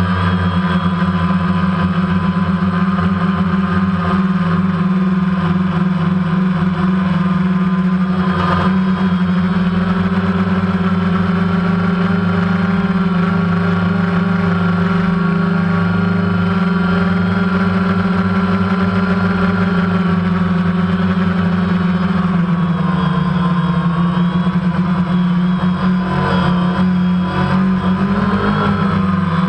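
DJI Phantom quadcopter's motors and propellers running steadily in flight, heard close up from the GoPro mounted on the drone. The pitch wavers near the end as the craft manoeuvres.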